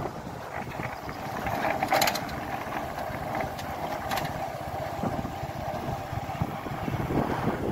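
Vehicle driving with its engine running steadily, and two sharp knocks about two and four seconds in.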